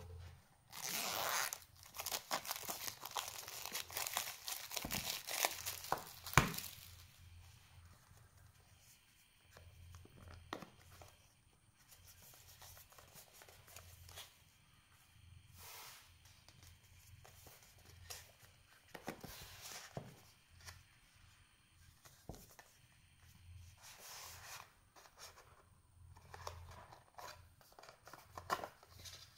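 Clear plastic shrink-wrap being peeled and torn off a small cardboard box, a dense crackling that is loudest over the first few seconds. After that come quieter rustles and handling of the box, with its inner cardboard tray sliding out near the end.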